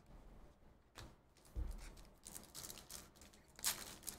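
Trading cards being handled and slid through the hands: a faint click and a low thump, then a run of quick papery rustling and scraping strokes.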